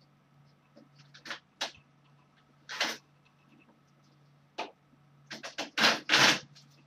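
Curtains being pulled open: a run of short scraping, rustling strokes as the curtain slides along its rail, the loudest two near the end.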